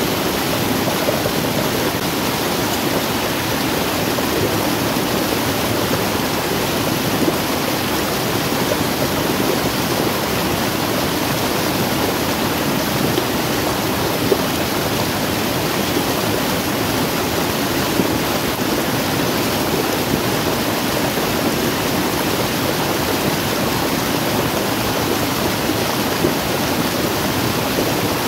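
Muddy floodwater rushing steadily down a small waterfall and through an eroded gully, loud and unbroken.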